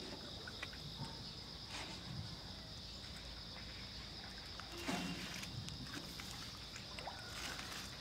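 Steady high chorus of insects outdoors, with a few soft knocks and one louder thud about five seconds in from feet shifting in a small metal boat.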